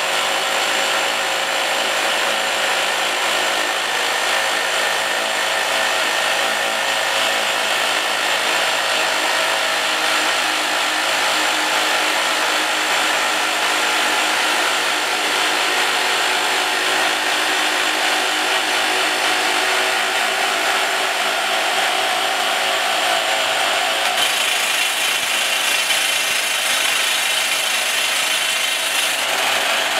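Twin-boom rock drilling rig running, its drill steels boring into rock in a loud, steady, grinding noise; the sound takes on more high hiss about 24 seconds in.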